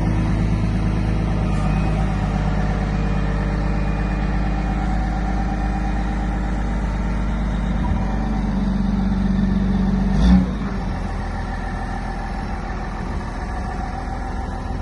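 CAT 924H wheel loader's diesel engine running steadily, rising in speed under load for a couple of seconds. A brief loud knock comes about ten seconds in, after which the engine settles to a lower, even running.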